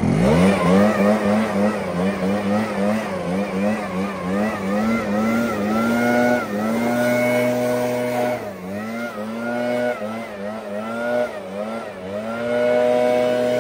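Handheld leaf blower spinning up and running, its pitch dipping and rising again and again as the trigger is eased and squeezed, then holding steady near the end.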